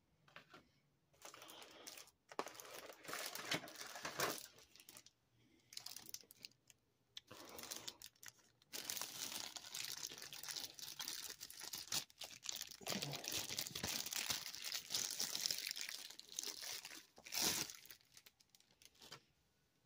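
Clear plastic protective bag crinkling as it is handled and pulled off a model airliner. It comes in short broken bursts at first, then crinkles almost without a break through the second half before stopping near the end.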